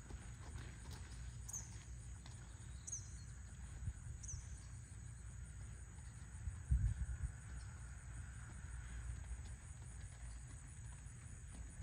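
Insects trilling in a steady high-pitched drone, with a bird giving three short falling chirps in the first half. Under it is a low rumble, and there is a single muffled thump about two-thirds of the way through.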